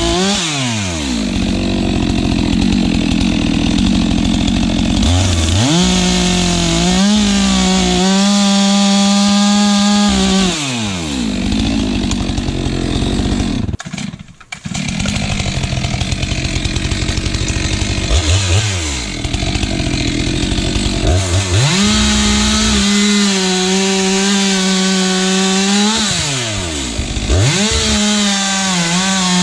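Stihl MS462 two-stroke chainsaw bucking firewood logs. The engine revs up and holds a high, steady pitch through each cut, then drops back between cuts, several times. There is a brief drop-out near the middle.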